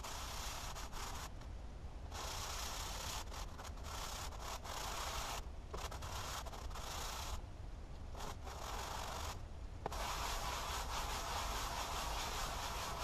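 Block plane blade rubbed back and forth by hand on fine-grit sandpaper to clean up its surface: a scratchy sanding sound in runs of a few seconds, broken by short pauses.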